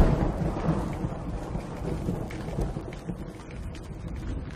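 Thunder rumbling, loudest at the start and slowly fading away.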